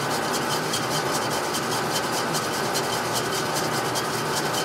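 Atlas horizontal milling machine running, its solid carbide end mill taking a light cut in an aluminum block: a steady rasping hiss with a fast, even ticking over it. The machine is cutting without struggling.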